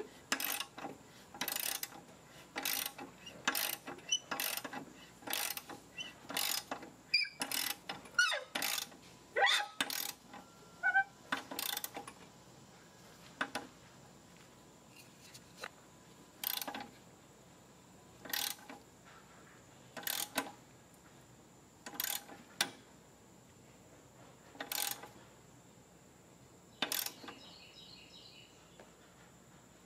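Socket ratchet wrench clicking in short bursts as it is swung back and forth to tighten the lawn mower blade's mounting bolt. The bursts come quickly at first, then slow to about one every two seconds as the bolt tightens.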